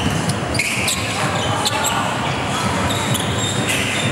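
Basketball game play: a ball bouncing repeatedly on the court, with short high sneaker squeaks and a background of voices.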